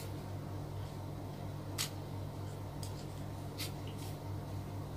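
A few light clicks and scrapes as a screwdriver and wires are worked into the terminals of a plastic switch board, over a steady low hum.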